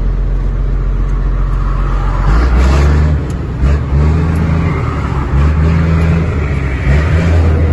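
Scania truck's diesel engine heard from inside the cab, pulling under acceleration. The revs climb and drop back several times as the driver shifts up through the gears.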